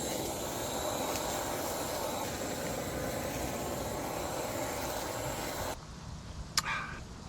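Seasoned pig tails sizzling on a grill, a steady hiss that cuts off suddenly about six seconds in, followed by a couple of faint clicks.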